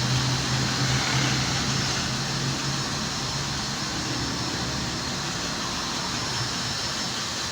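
Steady engine and traffic noise, with a low engine hum that stops about three seconds in.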